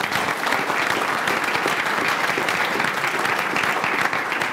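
Audience in a lecture room applauding, a steady mass of many hands clapping.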